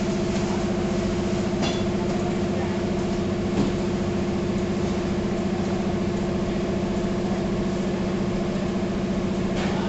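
Automatic wrap-around sticker labeling machine running: a steady mechanical hum from its conveyor and belt drive, with a low, even tone and a faint tick or two.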